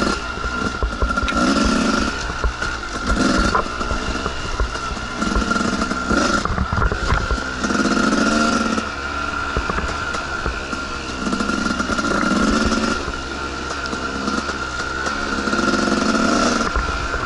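Two-stroke dirt bike engine on the trail, the throttle opened in repeated bursts about every two to three seconds over a steady running note.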